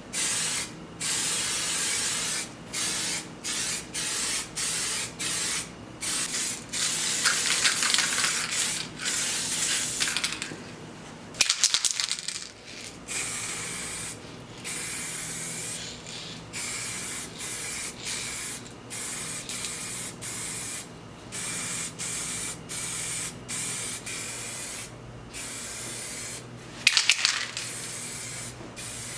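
Spray gun hissing in many short bursts, trigger on and off with brief gaps, as a coat is sprayed on. Sharp clattering knocks come about twelve seconds in and again near the end.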